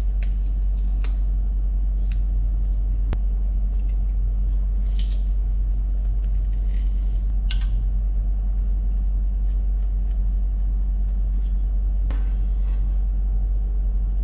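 A steady low hum runs throughout, with faint metallic clicks and scrapes from a hand-held metal garlic press crushing garlic cloves and a knife scraping the pressed garlic off it.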